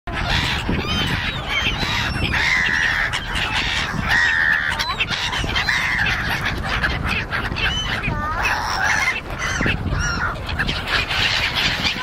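A flock of gulls calling over one another, many short harsh squawks that bend up and down in pitch, over a steady low rumble.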